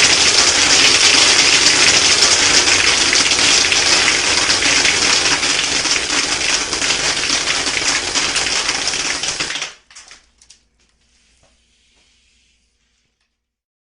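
Compressed air blasting through a homemade soda-bottle airsoft machine gun fed by an air-compressor blowgun, with a fast rattle of pellets firing out. It is a loud steady hiss that cuts off abruptly about ten seconds in, followed by a few faint clicks.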